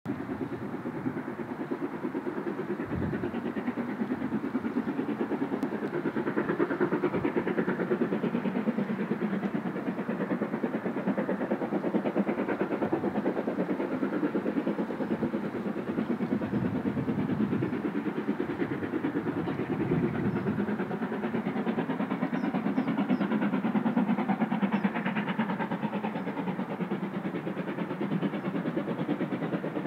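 LMS Stanier Black Five 4-6-0 steam locomotive No. 44871 working a train in the distance, its exhaust chuffing steadily.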